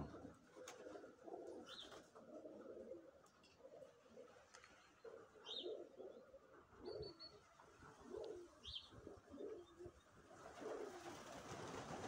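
Domestic pigeons cooing softly in repeated short calls, with a few brief high chirps from small birds. Near the end a rush of wing flapping as the flock lifts off.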